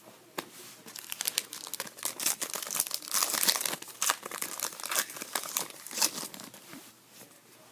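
A foil hockey card pack wrapper being torn open and crinkled by hand: a run of dense crackling that is loudest in the middle and dies down near the end.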